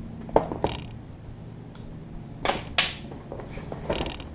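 Cardboard box being opened by hand: a few sharp clicks and knocks, then two loud rasping scrapes of cardboard about two and a half seconds in, and a short rustle near the end.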